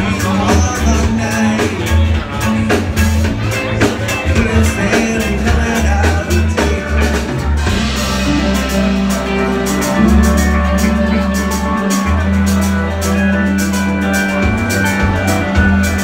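Live rock band playing loud and amplified: electric guitars and drums, with long held low bass notes in the second half.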